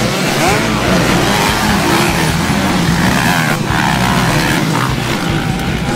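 Several motocross bikes racing, their engines revving up and down in pitch as they accelerate and take the jumps.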